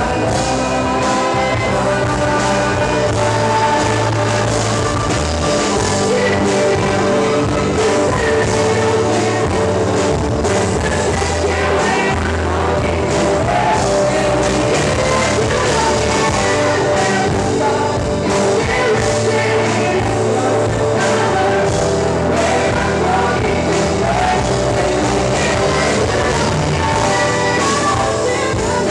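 Live band playing a song with a woman singing lead into a microphone, backed by electric guitar, electric bass and keyboard.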